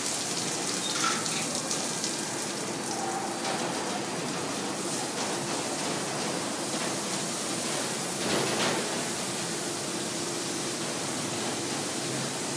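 Automatic rollover car wash running, its red cloth brushes and water sprays working over a car: a steady rush of spraying water, with a faint steady machine hum under it from about the middle on.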